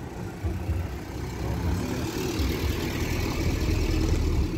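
A vintage car's engine running nearby, growing a little louder through the second half.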